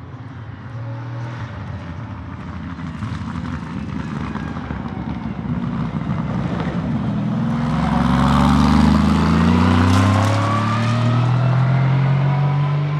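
Aston Martin Vantage GT3 race car's 4.0-litre twin-turbo V8 accelerating, growing steadily louder as it approaches, its engine note rising in pitch through the second half and loudest about eight to ten seconds in.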